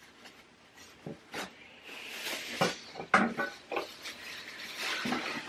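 Plastic trash bag crinkling and rustling as it is fitted into a small stainless steel step bin. A few sharp clicks and knocks come from the metal can along the way.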